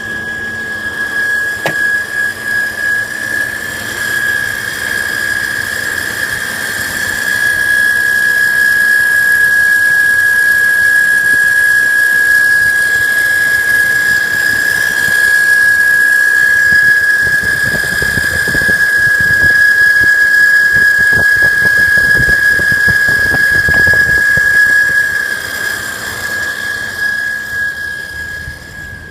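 A steady, high-pitched whistle from under the hood of an Audi A6 C5. It holds one unchanging pitch throughout, grows louder a few seconds in and eases off near the end.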